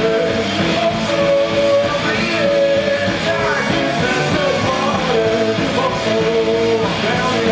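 Live rock band playing: electric guitars with a male voice singing over them.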